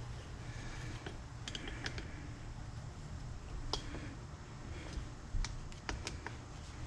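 Scattered light clicks and taps of hand tools and engine parts being handled on a workbench, over a low steady hum.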